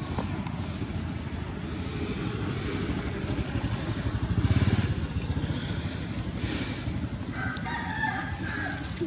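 A rooster crows once near the end, over a steady low rumble.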